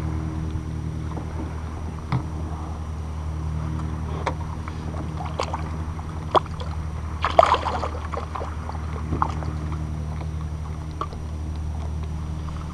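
A boat's motor running steadily as a low drone, with scattered light clicks and knocks of gear handled on a kayak and a louder clattering cluster about seven seconds in.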